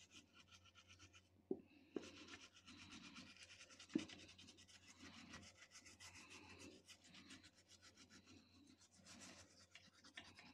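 Faint rapid scrubbing on a laptop motherboard as it is cleaned, a quick even rubbing rhythm, with a few light knocks in the first four seconds.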